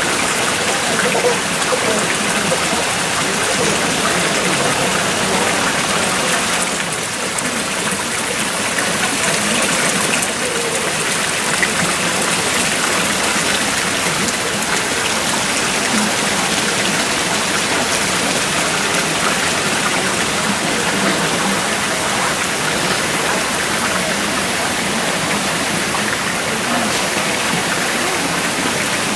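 Water of the Fountain of the Organ's cascades and jets falling and splashing in a steady, even rush.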